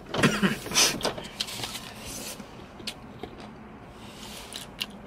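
Close-up chewing of crispy fried food for about two seconds, then quieter rustles and a few light clicks of food being handled.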